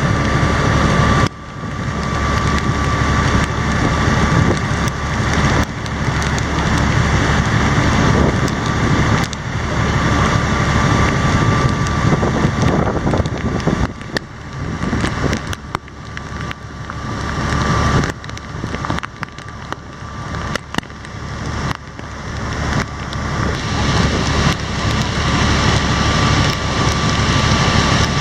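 Longtail boat engine running under way in a heavy downpour, mixed with rain hitting the water and wind buffeting the microphone. The loudness swells and dips repeatedly, with a sharp drop about a second in.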